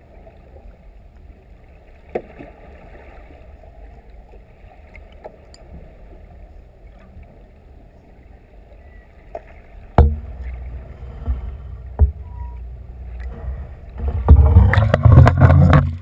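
Muffled underwater rumble heard through a camera's waterproof housing, with a few faint clicks. A sharp knock comes about ten seconds in. Near the end there is loud rushing and splashing as the camera is hauled up through the water to the surface.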